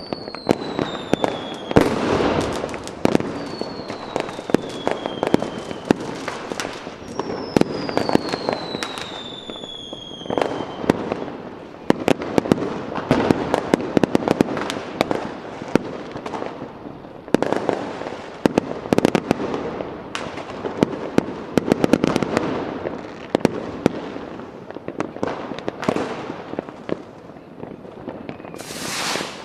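Fireworks going off: a dense, continuous run of sharp bangs and crackling pops. Several high whistles fall in pitch in the first ten seconds, and a short hissing rush comes near the end.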